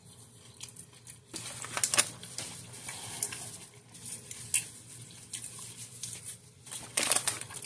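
Eating a sub sandwich: chewing and the rustle of its paper wrapper as the bitten piece is set down, in irregular crackles. The crackles are loudest about two seconds in and again near the end.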